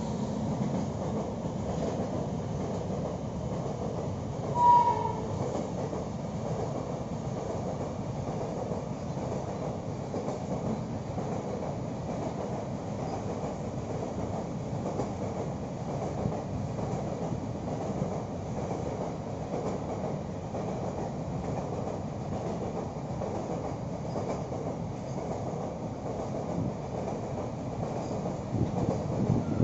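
Container freight train rolling past on the rails, a steady rumble of wagons and wheels. About five seconds in there is one short, high horn toot, the loudest sound. The rumble swells near the end.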